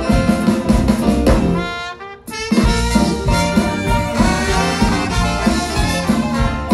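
Live jazz big band playing, with trumpets, trombone and saxophones over drums, keyboard and guitars. About two seconds in the band cuts off on a horn phrase for a brief stop, then comes back in together.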